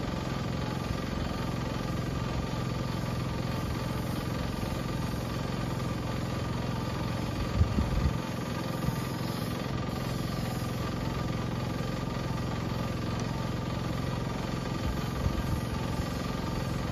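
Small engine-driven sprayer pump running steadily while it feeds the spray hose. A couple of brief knocks come about seven and a half seconds in.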